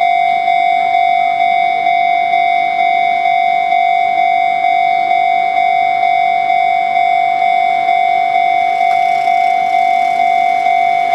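Japanese electronic railway level-crossing warning bell ringing at an even pace of about two strikes a second. Each strike is a single ringing tone that fades quickly. It signals that a train is approaching. A faint noise from the approaching train builds underneath near the end.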